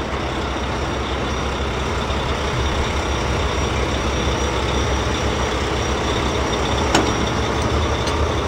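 Sound effect of a truck engine running steadily, with a brief click about seven seconds in.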